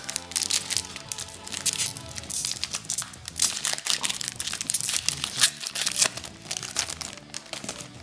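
Foil trading-card pack crinkling and tearing as it is pulled open by hand, in quick irregular crackles. Faint music plays underneath.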